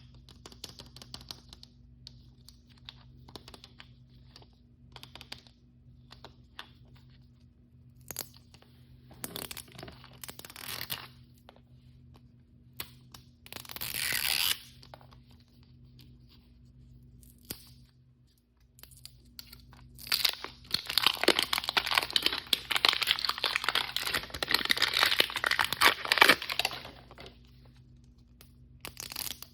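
Plastic blind-bag packaging being handled and torn open: light crinkling at first, short rips about ten and fourteen seconds in, then a long, loud stretch of tearing and crinkling in the last third.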